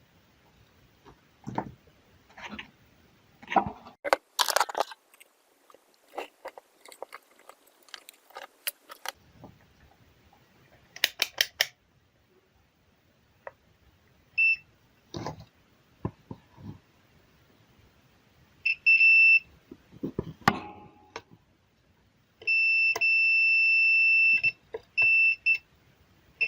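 Clicks and knocks of handling, then a multimeter's continuity beeper sounding several times: short beeps and one held for about two seconds. The beep is the meter showing an unbroken circuit through the part under test.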